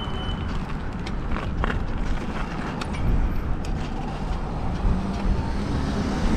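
Wind and road noise from a moving e-bike: a steady low rush, with a few light clicks.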